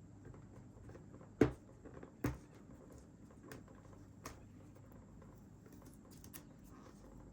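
Cardboard packaging being handled and opened: two sharp knocks about a second apart, followed by a few lighter clicks and rustles.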